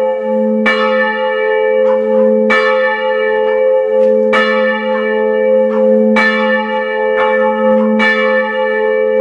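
Church bell tolling, struck five times at an even pace of about one strike every two seconds, each strike ringing on into the next.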